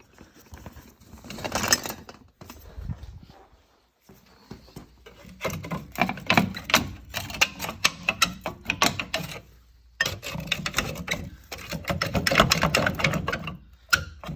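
Hand ratchet wrench clicking in fast runs of strokes, two long stretches with a short pause between, with some clatter of metal tools.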